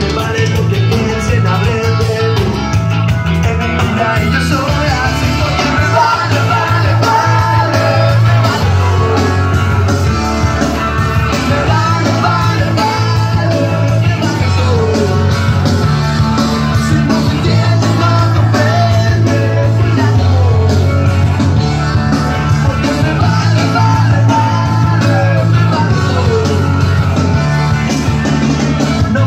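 Rock and roll song with singing and guitar, played loud through a dance-hall sound system, with a heavy, pulsing bass.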